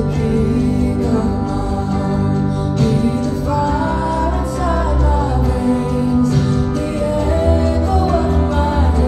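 Live worship band playing a slow passage: held chords and a strong bass, with a melody line gliding above them.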